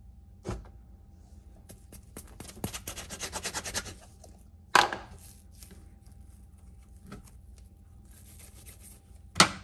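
A white ceramic cup is pressed down through bread dough and knocks against a bamboo cutting board while rounds of dough are cut. A quick run of scraping clicks against the board comes about two seconds in, and there are two sharp knocks, one near the middle and one near the end.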